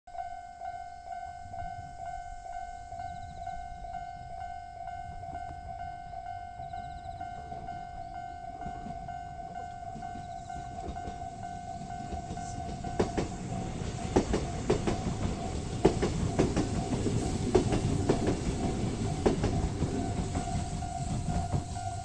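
Level-crossing alarm ringing in a steady, even repeating ding. About halfway through, a Kintetsu electric train passes over the crossing, its rumble and wheel clacks over the rail joints growing louder and covering the bell, which is heard again near the end.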